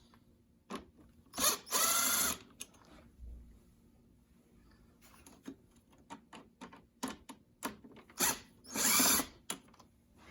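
Cordless power screwdriver whirring in two short runs, one about a second and a half in and one near the end, backing out the screws on a UV lamp cover. Light clicks and knocks of handling come in between.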